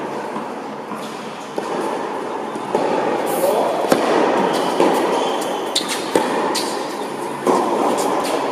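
Tennis rally in an indoor hall: sharp racket-on-ball hits and bounces about a second apart, echoing, over a steady background din, with a few brief shoe squeaks.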